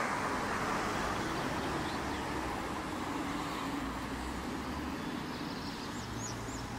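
Road traffic: a car's tyre and engine noise, loudest at first and slowly fading as it passes. A few faint bird chirps come near the end.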